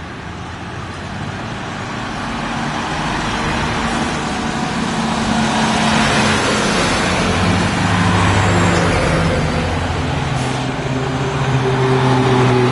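Fire-service convoy of vans and heavy trucks driving past close by: diesel engines running and tyres on the road, growing louder as the big trucks pass, with a steady engine hum strongest in the second half.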